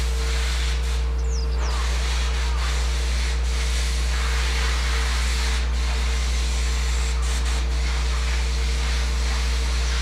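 Steady shipyard machinery noise: a constant low hum with a steady hiss over it. A brief high chirp sounds about a second in.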